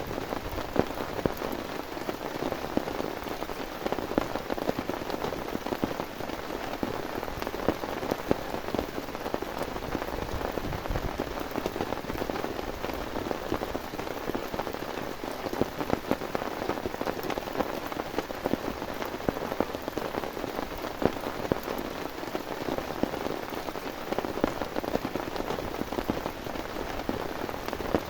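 Heavy rain falling steadily, with many separate drop hits standing out from the even hiss.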